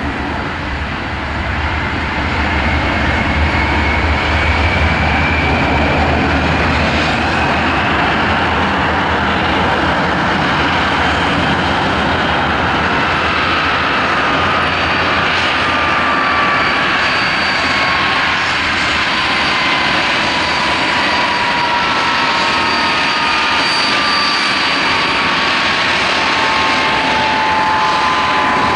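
Handley Page Victor K2 tanker taxiing slowly with its four Rolls-Royce Conway jet engines running: a loud, steady jet noise that swells over the first couple of seconds, with engine whines on top, one rising early on and several sliding slowly down in the second half.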